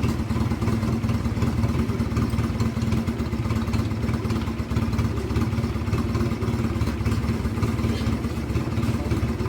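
Keeway Patagonian Eagle 250 V-twin engine idling steadily through a custom trumpet exhaust.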